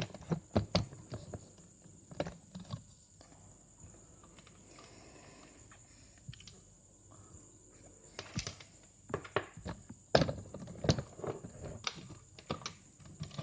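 Scattered light clicks, taps and knocks of small hardware being handled on a workbench: the mini PC's circuit board and multimeter probes being moved and set down. A quiet stretch in the middle, then a denser run of clicks near the end.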